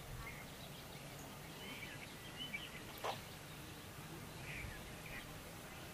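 Faint outdoor background noise with scattered short bird chirps, and one brief sharp sound about three seconds in.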